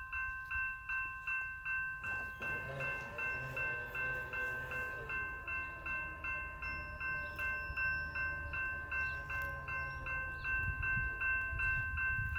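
Railroad crossing warning bell ringing in a steady, rapid series of identical dings as the crossing signals activate and the gates come down.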